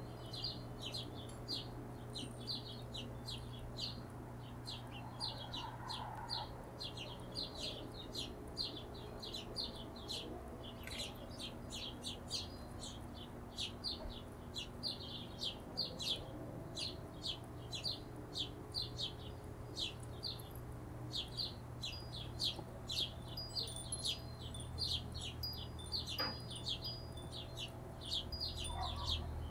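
Hummingbirds chipping: short, high chip notes repeated about three a second without a break, over a steady low hum.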